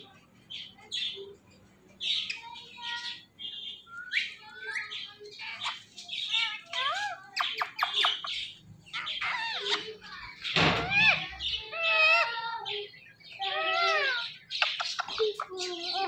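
Ring-necked parakeets calling: a quick run of short calls, many sliding up or down in pitch, sparse at first and almost continuous from about two seconds in.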